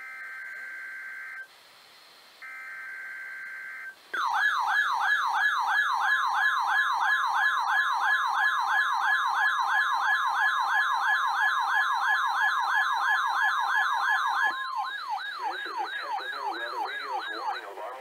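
NOAA Weather Radio receivers sounding a Required Weekly Test. First come the last two of the three SAME data bursts: harsh digital screeches, each over a second long, with a short gap between. About four seconds in, a fast warbling siren starts, about four sweeps a second, with the Weather Service's steady 1050 Hz alert tone under it. The steady tone cuts off about three seconds before the warble stops.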